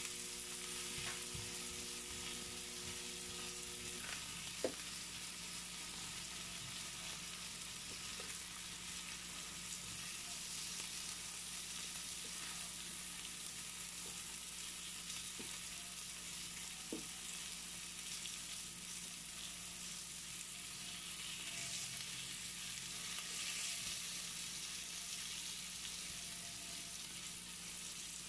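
Marinated meat slices sizzling steadily on the ridged plate of an electric contact grill, with a few sharp clicks as they are turned and stirred; the loudest click comes about five seconds in.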